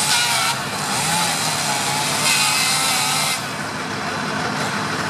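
Steady rushing hiss of a fire-hose water jet on a burning wooden shed, surging louder briefly at the start and again about two seconds in, over the steady low hum of a fire engine running.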